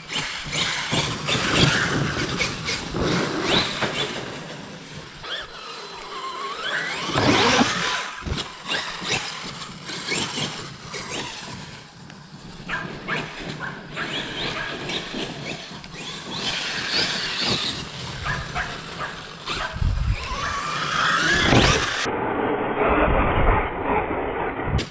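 Battery-electric Traxxas RC monster truck being driven hard on grass: the electric motor whines, rising and falling in pitch as it speeds up and slows, with tyres tearing at the turf and repeated knocks and thumps.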